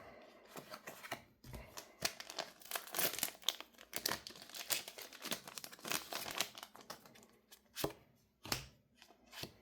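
Foil trading-card booster pack wrapper crinkling and being torn open, a dense run of crackles for several seconds, then a few light ticks near the end.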